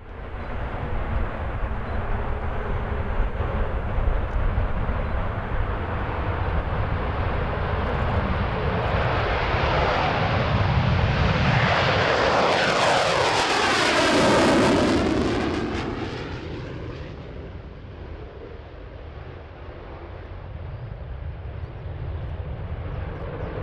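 Saab JAS 39C Gripen's single Volvo RM12 turbofan at takeoff power: a steady jet roar that builds to its loudest about twelve to fifteen seconds in as the fighter passes, with a sweeping whoosh in pitch, then fades as it moves away.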